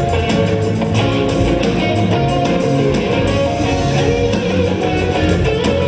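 Rock band playing with electric guitar to the fore over bass and drums, at a steady beat.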